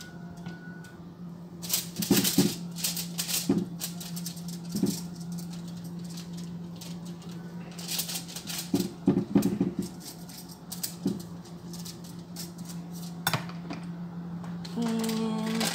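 Metal spoon scraping and tapping on aluminium foil in short, scattered bursts while minced chicken is spread out, the foil crinkling under it. A steady low hum runs underneath.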